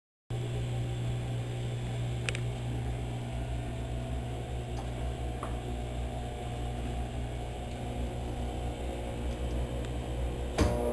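Washing machine running with a steady low hum, with a faint click about two seconds in and a sharper click near the end.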